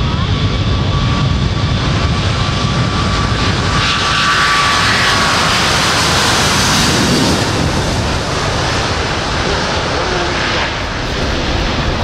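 Airbus A380's four jet engines at takeoff power on the takeoff roll: a loud, steady rumble with a thin whine in the first seconds. A brighter rushing hiss builds about four seconds in as the airliner passes close, then turns duller and slightly quieter as it moves off down the runway and rotates.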